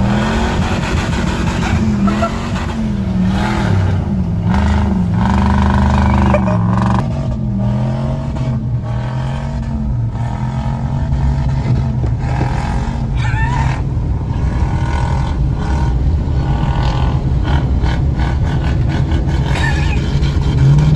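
Pickup truck engine revving, rising and falling over and over, then running steadier, heard from inside a truck cab.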